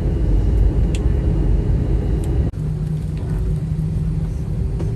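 Steady low rumble of a moving vehicle. It breaks off abruptly about two and a half seconds in, and a steadier hum with a low, even tone carries on.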